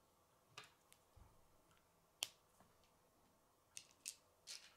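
K'nex plastic rods and connectors being handled and snapped together: a scattering of small sharp plastic clicks, the sharpest a little over two seconds in and several more near the end.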